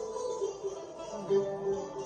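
Music played on a plucked string instrument, single pitched notes ringing one after another.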